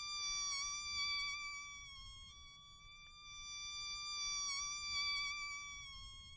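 Mosquito in flight, its high thin wingbeat whine wavering slightly in pitch. It swells louder twice and fades between, as it passes close and moves away.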